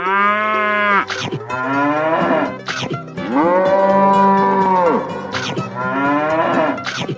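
Cattle mooing: about four long, drawn-out moos one after another, each rising and then falling in pitch, the third the longest.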